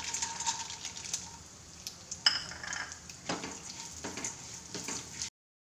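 Ghee sizzling in a nonstick kadai as chopped cashews are poured in on top of frying almonds, then a silicone spatula stirring the nuts, with a few soft scraping strokes against the pan. The sound stops suddenly near the end.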